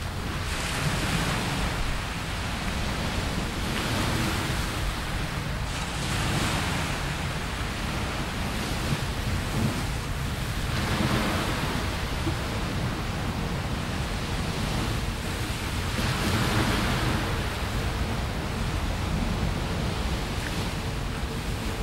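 Small sea waves washing onto the beach, the hiss swelling and falling back every few seconds, with wind rumbling on the microphone.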